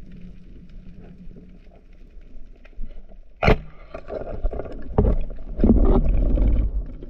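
Underwater recording noise from a camera moving through the water: a muffled low rushing with a faint steady hum, a sharp knock about three and a half seconds in, and louder rushing and a few dull knocks in the second half.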